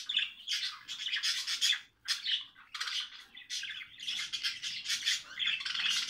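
A cage of budgerigars chattering and squawking in a continuous busy twitter, with a brief lull about two seconds in.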